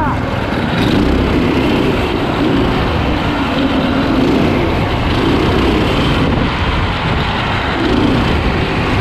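Four Predator 212 single-cylinder four-stroke engines on an all-wheel-drive go kart running together under throttle. Their combined pitch rises and falls every second or two as the kart is driven around the lap.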